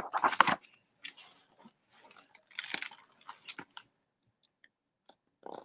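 Paper pages of a large picture book being turned: short crinkling rustles, the loudest in the first half-second and again around the middle, with a few faint taps between.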